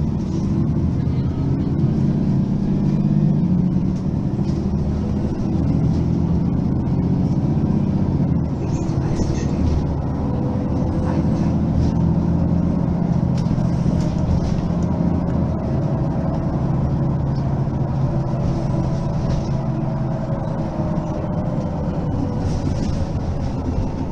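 Mercedes-Benz Citaro facelift city bus running under way: a steady diesel drone with a faint whine that climbs slowly and drops away near the end.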